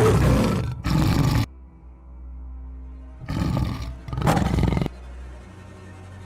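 Tiger roaring: two pairs of short, loud roars about three seconds apart, over low droning background music.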